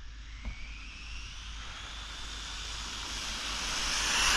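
Electric motor and drivetrain of a 1/14-scale Rlaarlo Croboll RC car on a 2S battery whining during a speed run. The whine rises in pitch and grows louder over the few seconds, with one faint click about half a second in.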